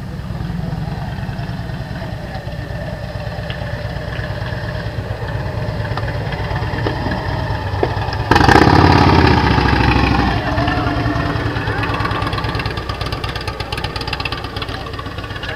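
Large touring motorcycle's engine running at low speed as the bike is ridden slowly through a cone course. About halfway through it becomes suddenly louder for about two seconds, then settles back.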